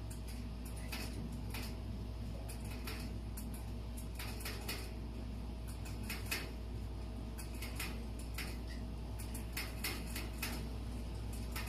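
Irregular wet clicks and smacks, some in quick clusters, from a chinchilla rabbit doe licking her newborn kits clean just after giving birth, over a steady low hum.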